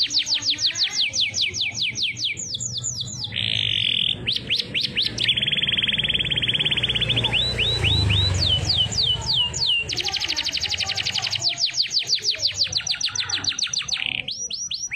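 Domestic canary singing a long, varied song. Fast trills of quick falling notes alternate with buzzy held rolls and a run of slower swooping notes just past the middle.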